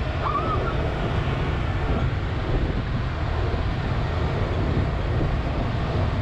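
Steady low rumble of a vehicle's engine running, with wind noise on the microphone.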